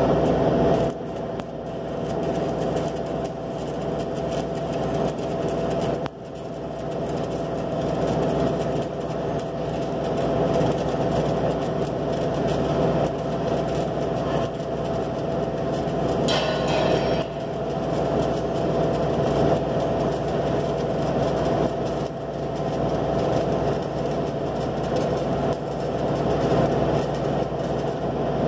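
Stick (shielded metal arc) welding with an E6013 electrode on a horizontal joint in steel plate: the arc's steady crackling hiss over a steady hum, briefly dropping about a second in and again around six seconds in, with a brief sharper hiss a little past halfway.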